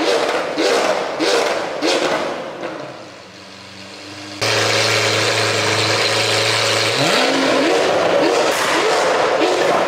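Beat-driven music with chanted vocals fades out about three seconds in. Then the Lamborghini Aventador SV's V12, breathing through a catless Fi Exhaust, cuts in loud and holds a steady idle for a couple of seconds. Its pitch rises near the seven-second mark as the chanting music returns.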